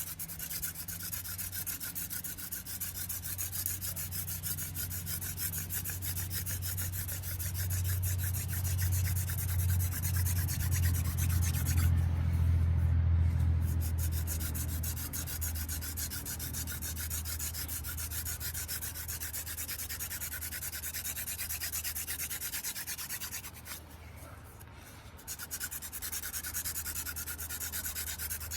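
Cattail drill spun fast between the palms on a dry velvetleaf stem hearth in a hand drill friction fire: a steady, rapid rubbing of stalk on hearth and hands on stalk, broken briefly about twelve seconds in and again about twenty-four seconds in. A low hum runs underneath, loudest around the tenth second.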